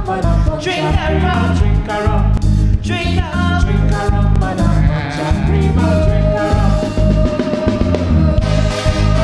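Live band playing an instrumental passage of a parang soca tune: horn section over bass and drums with a steady beat, the horns holding one long note near the end.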